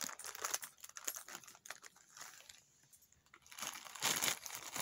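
A small bag of doll accessories being opened and rummaged through by hand: light crinkling with scattered small clicks, quieter about halfway through, then rustling more densely again near the end.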